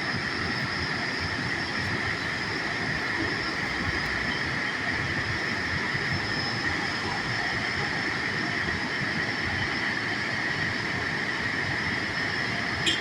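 Steady rushing of a waterfall, an even, unbroken noise with a steady high-pitched hum laid over it. A short rattle of clicks comes right at the end.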